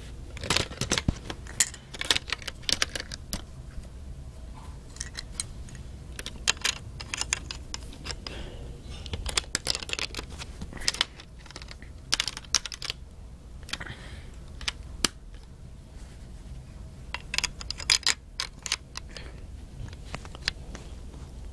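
Handling noise from fingers on the recording phone: irregular clusters of small clicks and rubbing scrapes, in quick runs with short pauses between them.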